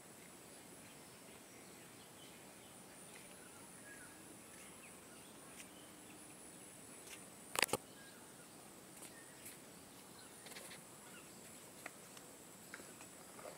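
Quiet rural ambience: a steady high-pitched insect drone, typical of crickets or cicadas, with faint scattered bird chirps. A single sharp click about halfway through is the loudest sound, and a few softer ticks follow.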